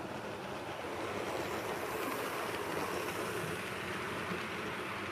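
A model train rolling past: diesel locomotives and a line of open coal cars running on the track, a steady rolling clatter of wheels and motor that grows a little louder as the cars pass close.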